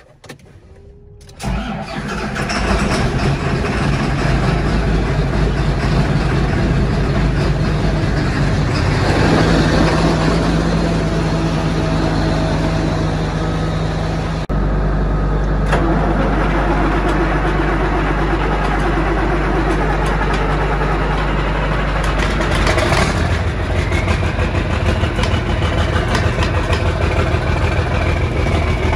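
John Deere 8410 tractor's six-cylinder turbo diesel starting about a second and a half in, then running steadily at idle; it is a cold start after months of sitting, with smoke from the exhaust stack. The engine's pitch shifts about three quarters of the way through, and a faint whine rises with it.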